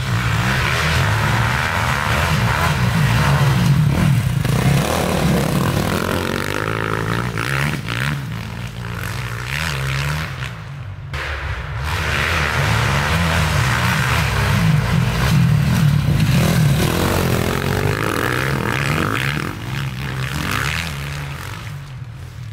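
Off-road motorcycle engines revving up and down as riders pass along a sandy track, the note rising and falling several times. The sound breaks off briefly about eleven seconds in, then another bike is heard.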